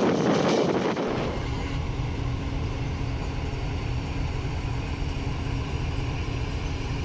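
Rushing, rattling noise of a moving goods train, heard from aboard beside the container wagons. It cuts off about a second in to the steady low rumble and hum of a stationary Pakistan Railways diesel-electric locomotive idling.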